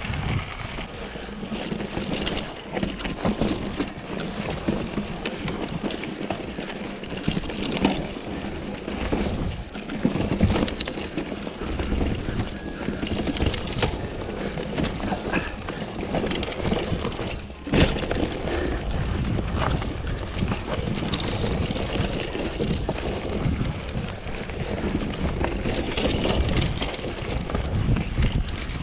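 Giant Trance full-suspension mountain bike ridden over a dirt and gravel forest trail. The tyres crunch and the bike rattles and clicks continuously over roots and stones. One sharp loud knock comes a little past halfway.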